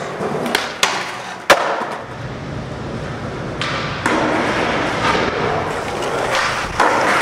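Skateboard sounds: three sharp cracks of the board hitting concrete in the first second and a half, then skateboard wheels rolling over concrete, louder from about four seconds in.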